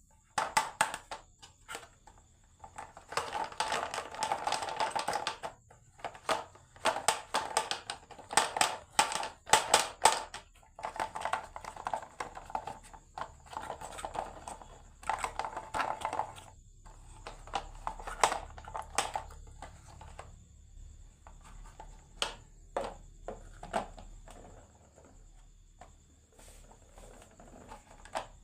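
Marbles rolling and clattering down a HABA wooden marble run, with bursts of rattling rolls and sharp clicks as they hit the track pieces and each other, growing sparser toward the end.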